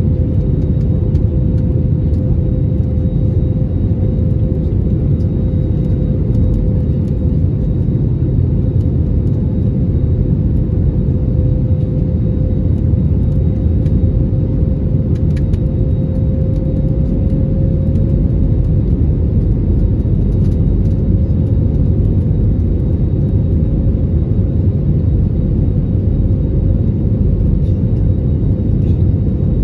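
Cabin noise of an Airbus A321neo in flight, heard from a window seat by the wing: a steady roar of airflow and its Pratt & Whitney PW1133G geared turbofans. A single engine hum sits above the roar, and its pitch creeps up slightly about halfway through, then holds.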